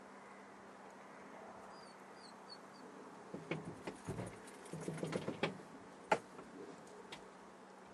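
Open-field ambience with a few faint bird chirps, then about two seconds of close rustling and crunching and one sharp click about six seconds in.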